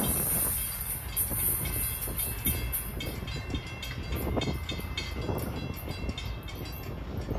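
Passenger train pulling away down the track: a steady low rumble of wheels on rail, with faint high-pitched tones above it.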